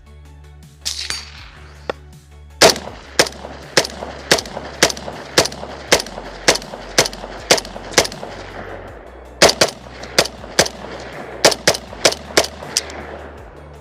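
Galil rifle firing single shots in quick succession, a steady string of about two shots a second, a brief pause, then a second string of shots.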